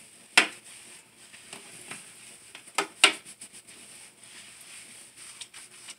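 Wet hands squishing shampoo through soaked locs and rubbing the scalp, a soft wet handling sound. A few sharp clicks stand out, the loudest about half a second in and two close together near the three-second mark.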